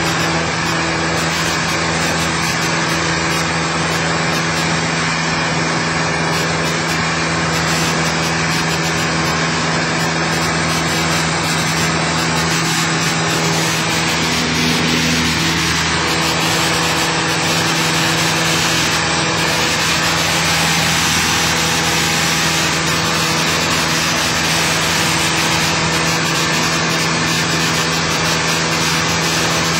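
Cessna 172's single piston engine and propeller droning steadily in flight, heard from inside the cabin, with a rush of air noise under it.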